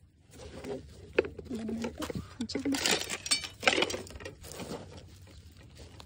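Gloved hand digging through potting soil and dry plant debris in a pot, with rustling and scraping that is loudest about three seconds in and a sharp click about a second in. A voice makes a few short murmured sounds.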